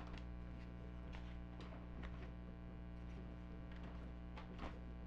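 Clear plastic sleeve pages of a ring binder being turned by hand, giving a few faint crinkles and ticks, over a steady low electrical hum.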